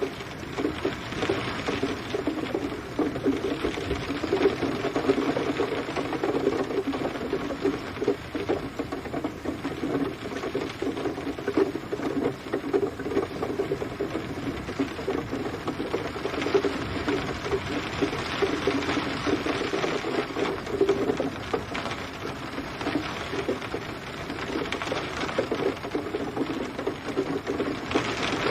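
Steady rain falling on a hard surface: a dense, even patter of many drops, with no thunder.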